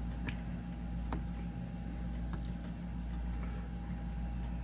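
A steady low hum with a faint constant tone, broken by a few light clicks.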